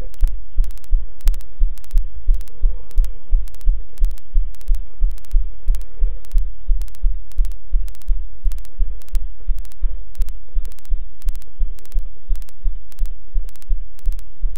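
Deep, regular bass thumping about three times a second, with the treble cut away: a bass-heavy backing music track.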